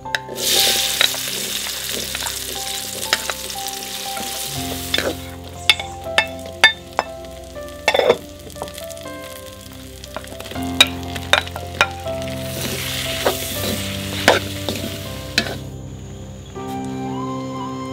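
Sweetcorn kernels dropped into hot oil in a wok, sizzling loudly at once, then stir-fried with a spatula that clicks and scrapes against the pan. The sizzling swells again later and stops shortly before the end.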